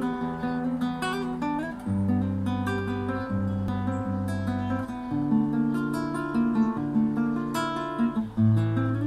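Nylon-string classical guitar played fingerstyle: plucked melody notes ringing over held bass notes, the bass changing every few seconds.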